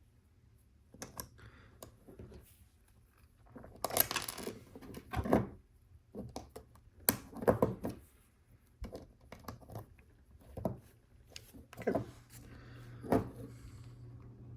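Plastic LEGO pieces clicking and clattering as they are handled, searched through and pressed together, with a few louder clattering bursts between lighter clicks.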